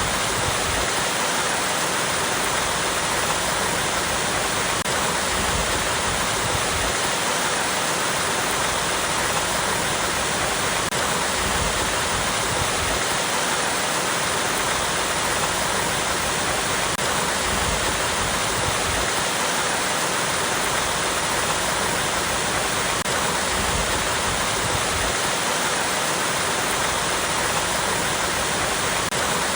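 Small waterfall splashing over rocks: a steady, continuous rush of falling water.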